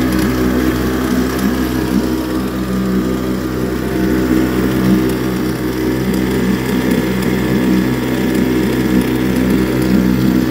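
YADAO 3.5 hp two-stroke outboard motor running steadily at a constant speed, its propeller churning the water in a barrel; the brand-new motor is being broken in.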